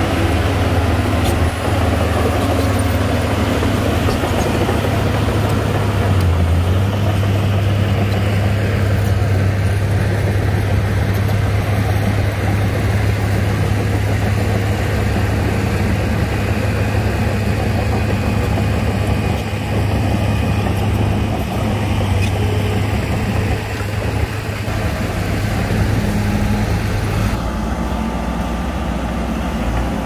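Wheel loader's diesel engine running steadily as the machine drives, a continuous low hum. Its note drops near the end.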